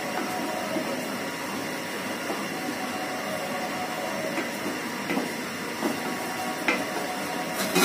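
Wooden spoon stirring dry vermicelli (simai) frying in ghee in an aluminium pot, over a steady hiss from the pot on the gas stove. In the second half the spoon knocks against the pot a few times.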